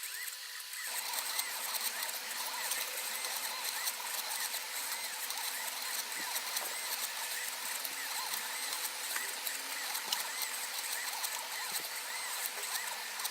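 Stepper motors of a mini CNC plotter whining in many short rising and falling glides as the axes move back and forth, over a steady hiss.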